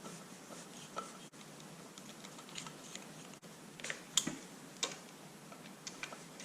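Quiet, scattered clicks and taps of small parts and tools being handled as the cover is refitted over a dirt bike's throttle position sensor. The sharpest taps come about a second in and around four to six seconds in.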